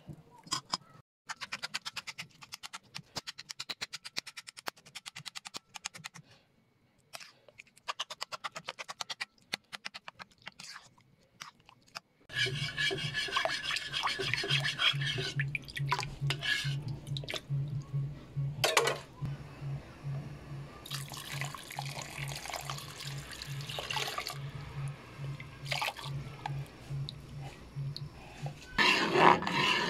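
Metal spoon scraping ripe mango flesh against a ceramic bowl in quick, repeated strokes. About twelve seconds in, the sound changes abruptly to a spoon stirring in a bowl over a low pulsing hum, with louder spoon scraping in an aluminium pot near the end.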